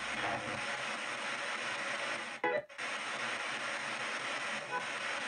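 P-SB7 spirit box sweeping through radio stations in reverse, played through stereo speakers: a steady hiss of static chopped by the sweep, with a brief break about two and a half seconds in and snatches of broadcast sound.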